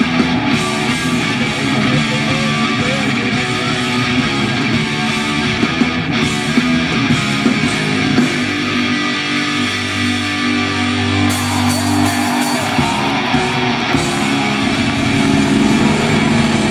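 Japanese heavy metal band playing live: distorted electric guitars, bass and a drum kit at full volume. The deepest low end drops away for a few seconds past the middle, then the full band returns.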